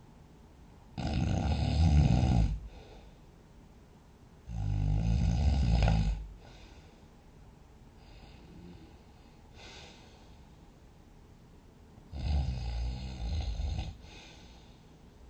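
A sleeping person snoring heavily: three long snores, the third in two parts, with faint breathing in the longer gap before it.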